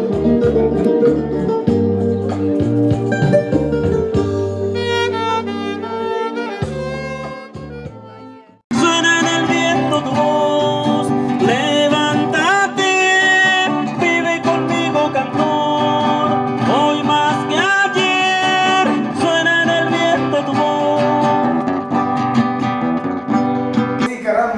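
Nylon-string acoustic guitar strummed with a man singing, folk-style. The first passage fades out about eight seconds in and is cut off abruptly by another passage of strummed guitar and singing.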